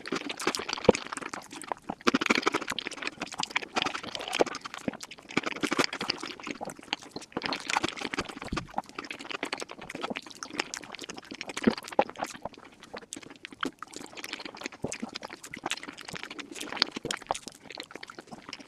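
Close-miked eating sounds sped up about five times: rapid wet chewing, smacking and slurping, with a constant stream of sharp mouth clicks and crunches.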